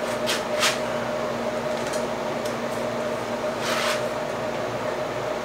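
Steady hum of a window air conditioner running, with brief scuffs and rattles of a bicycle being lifted off a repair stand and set down, twice within the first second and once about four seconds in.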